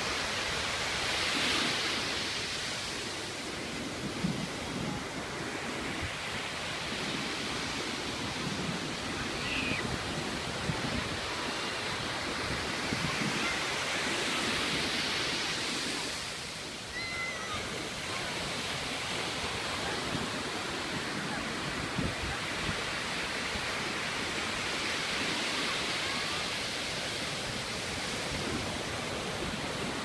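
Ocean surf breaking and washing up a sandy beach: a steady rush of white water that swells and eases several times.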